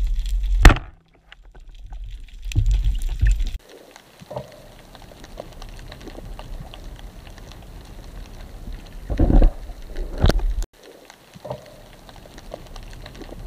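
Muffled water noise picked up through an action camera's waterproof housing: low sloshing rumble with scattered small clicks and a few louder thumps, broken by abrupt cuts. The background music stops with a click just at the start.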